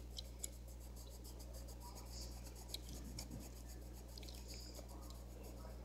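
Pencil scratching on paper in quick, continuous back-and-forth strokes as a coloring-book page is shaded in, with a few light taps, over a low steady electrical hum.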